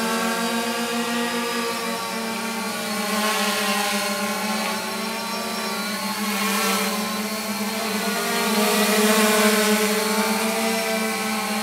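Multirotor drone's electric motors and propellers running with a steady hum, its pitch wavering slightly up and down as the copter bounces around, unstable while loitering on Pozyx positioning instead of GPS.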